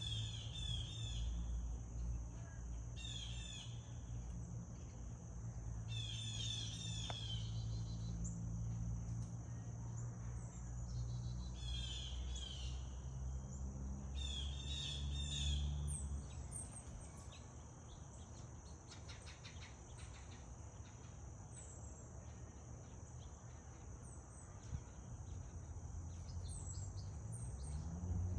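Birds chirping in short bursts of quick, high calls every few seconds, over a steady high-pitched hum and a low rumble that fades out about halfway through.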